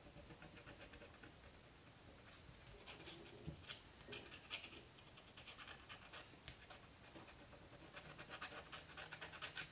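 Faint scratching of a pointed tool rubbing dried masking fluid off watercolour paper, in short quick strokes that become rapid and steady near the end.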